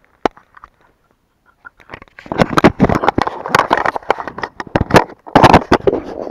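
Handling noise on a body-worn camera: clothing and hands rubbing and knocking against the microphone. A few separate clicks, then from about two seconds in a loud, dense crackling rustle.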